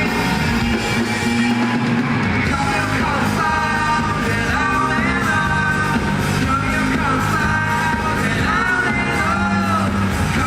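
Live rock band playing at full level, with a lead vocal line that comes in about two and a half seconds in.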